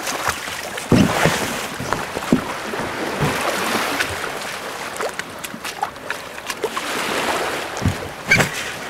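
Water rushing and splashing against a small boat's hull as it moves, with several dull knocks or thumps. The loudest come about a second in and near the end.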